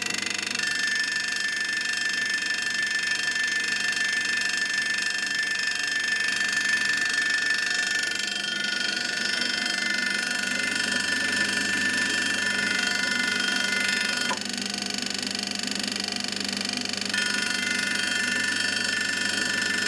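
SIP B20-16 bench pillar drill running with a steady high-pitched whine, an abnormal noise in a drill that arrived damaged in transit. The whine drops slightly in pitch about eight seconds in, fades out about fourteen seconds in and comes back about three seconds later.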